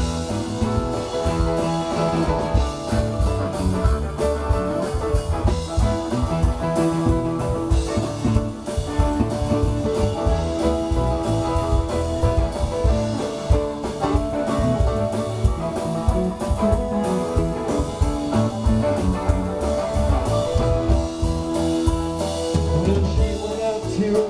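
A live rock band playing an instrumental passage: electric guitar, bass guitar, drum kit and keyboards together, with no vocals.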